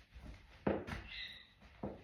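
A few soft knocks and taps, three short ones spread across two seconds, with a brief faint squeak between them.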